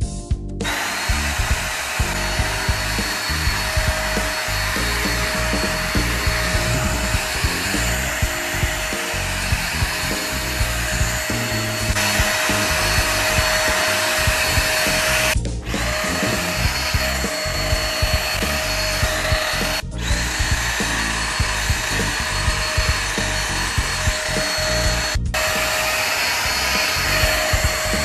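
Handheld stick vacuum cleaner running, a steady rushing hiss with a constant motor whine, as it is drawn over a fleece blanket. The sound starts about half a second in and cuts out briefly three times. Background music plays underneath.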